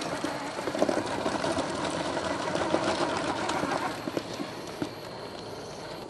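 Traxxas TRX-4 RC crawler working over rock: its small electric motor and gears running under load, with tyres scrabbling and stones crunching and clattering. The clatter eases off about four seconds in.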